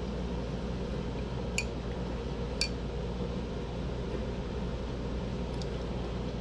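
Steady low room hum, with two light, sharp glass clicks about a second and a half and two and a half seconds in as a glass root beer bottle is drunk from, and a fainter click near the end.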